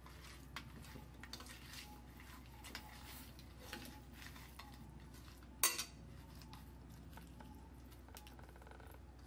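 Hand rubbing spice marinade into raw tiger prawns on a plate: soft scraping and light taps of fingers and prawn shells against the plate, with one sharper clink a little past halfway.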